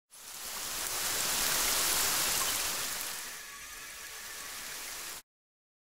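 Steady rushing hiss of rain, swelling over the first two seconds, easing, then cutting off suddenly about five seconds in.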